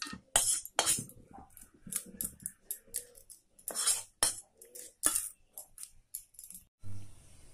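Spatula scraping and clinking against a wok and a stainless steel bowl as cooked vegetable filling is scraped out of the wok into the bowl: a run of irregular sharp scrapes and clinks.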